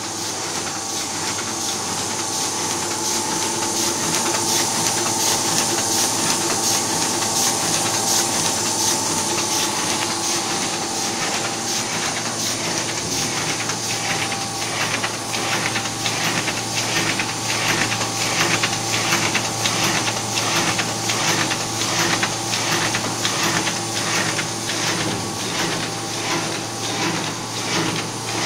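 Automatic sheet-fed die-cutting machine running: a steady mechanical hum with a strong hiss. From about twelve seconds in, a regular clacking of about one and a half strokes a second comes in as it cycles sheets through.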